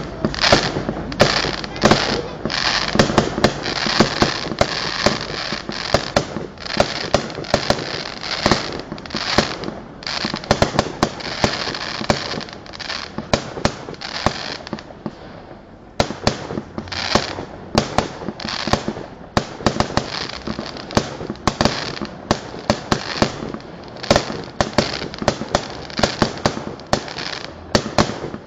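A fireworks display of aerial shells bursting one after another: many sharp bangs with crackling fizz between them, easing briefly about halfway through before the bursts pick up again.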